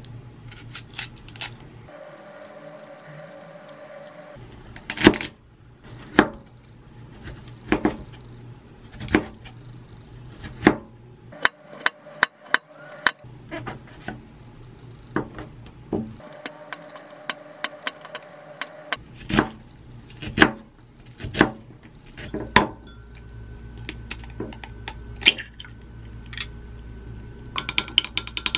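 A kitchen knife cutting vegetables on a wooden cutting board, with single sharp strokes about a second apart. Near the end, quick clinking of a utensil beating egg in a glass mug.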